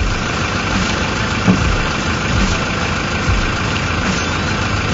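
Bass boat's outboard motor running steadily, with a few low thuds.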